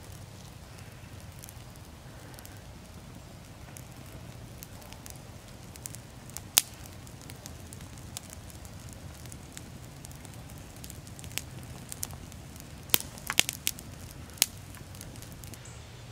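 Small wood campfire burning with a steady low rumble and scattered sharp crackles and pops, several coming close together near the end. The firewood is damp and the fire struggles to stay lit.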